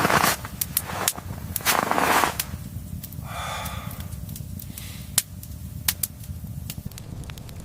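Fire crackling in a stove, with many sharp, irregular pops. Two brief rushes of noise come at the start and about two seconds in, and a short scrape comes near the middle.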